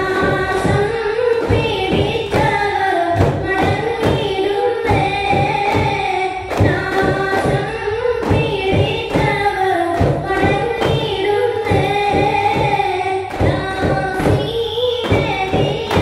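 Duff muttu performance: voices singing a song over a steady beat of hand-struck duff frame drums.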